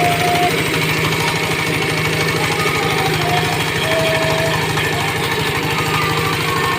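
KL 160 vertical feed pellet mill running steadily, its drive giving a rapid, even pulsing mechanical drone.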